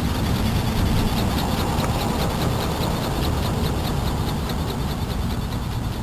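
Wind buffeting the microphone in an uneven low rumble, with a faint high chirping pulsing about five times a second behind it.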